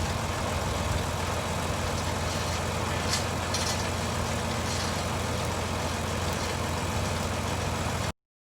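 Engine of farm machinery idling steadily with a low hum and a few faint high ticks in the middle; it cuts off suddenly near the end.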